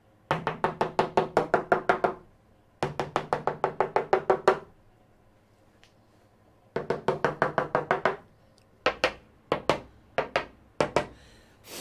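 A plastic tool handle rapidly tapping a fiberglass-laminated boat doghouse roof, in runs of about eight taps a second, each tap ringing with a short drum-like tone. It is a tap test of the lamination, and the ring marks where the laminate has come loose. Near the end come a few slower single taps.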